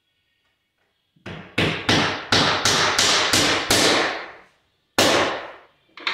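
A hammer nailing the stair-nosing trim onto a wooden stair tread: a quick run of about eight sharp blows, roughly three a second, starting about a second and a half in, then a single further blow about five seconds in.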